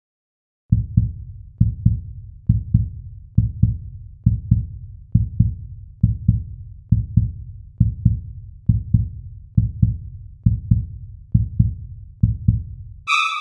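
Heartbeat sound effect: low double thumps, lub-dub, evenly spaced at a little over one beat a second, about fourteen in all. Near the end the beats stop and a short high tone sounds.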